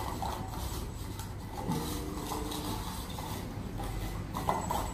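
Beagle puppies eating dry kibble from a steel bowl on the floor: scraping, small clinks and crunching, over a steady low hum.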